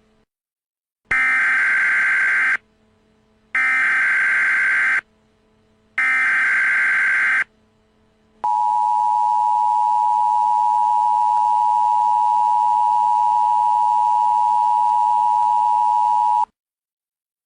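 Emergency Alert System SAME header: three identical bursts of screeching digital data, each about a second and a half long with a second's gap, followed by a steady attention tone of about eight seconds that cuts off abruptly. This sequence signals the start of a new emergency alert broadcast.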